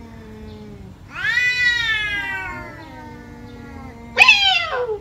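Cats yowling at each other in a face-off. A long, drawn-out yowl starts about a second in and slowly sinks in pitch over a low, steady moan. Near the end comes a louder, sharper yowl that drops steeply.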